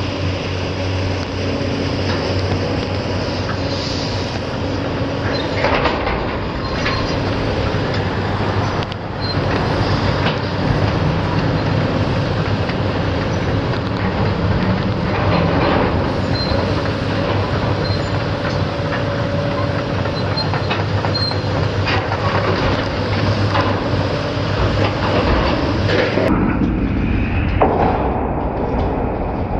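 Hydraulic excavator engine running under load while its demolition grapple handles and drops scrap steel plate from double-walled oil tanks: metal scraping, squealing and clanging.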